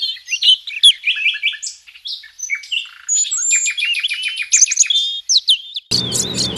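Songbird singing a fast, varied string of chirps and trills, with a quick run of repeated notes in the middle. Near the end a steady background hiss and low hum come in, with further sharp chirps over them.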